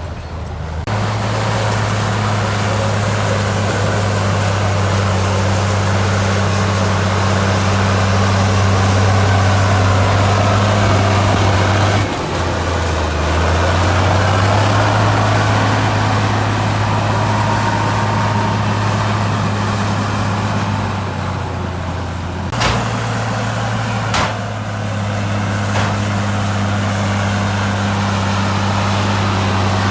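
Heavy diesel engine of earthmoving equipment running steadily, its pitch shifting about twelve seconds in. Two sharp knocks come later, about a second and a half apart.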